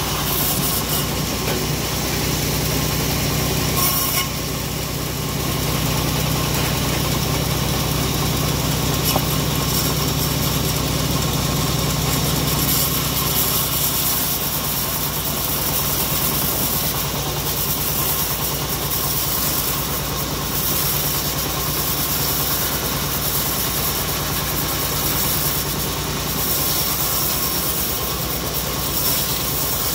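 Homemade bandsaw mill running steadily under load, its engine humming and the blade hissing as it rips lengthwise through a log.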